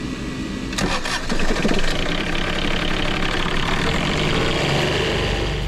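Boat's marine generator cranking and catching about a second in, then running steadily. It is being test-run after an emergency oil change, to see whether its low-oil-pressure fault clears.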